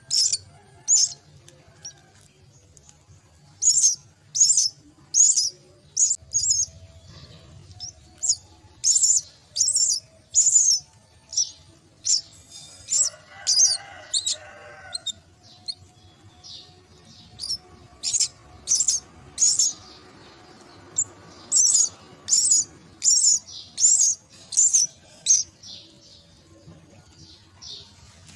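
Myna chicks giving short, high-pitched begging calls, repeated about two a second in runs of several with pauses between the runs.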